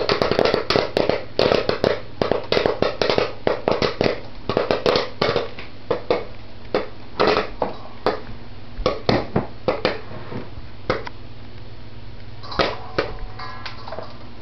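Popcorn kernels popping in hot canola oil inside a covered pot, rapid at first, then slowing to scattered pops in the second half as the batch nears its end.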